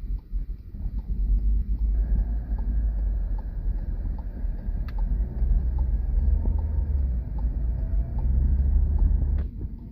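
A car driving: the low rumble of engine and tyres on the road, which grows louder about two seconds in and drops away near the end, with a faint regular ticking.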